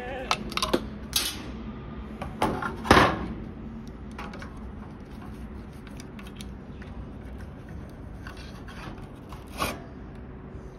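Handling noise of an air conditioner's outdoor circuit board being held and turned over: a cluster of short rubs, clicks and scrapes in the first three seconds, the loudest a longer scrape about three seconds in, then a steady quiet background with one more scrape near the end.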